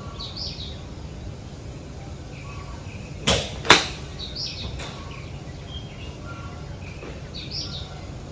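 A golf shot: the club swishes through and strikes the ball with a sharp crack, the loudest moment a little over three and a half seconds in.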